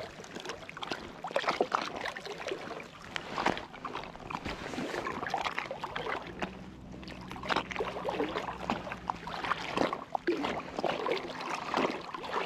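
Water splashing and sloshing close beside an inflatable float tube, in uneven splashes.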